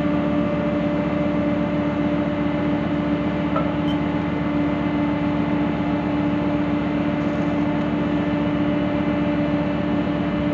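Steady drone of a ship's machinery running at anchor: a continuous hum with one strong low note and a fainter higher one, unchanging throughout.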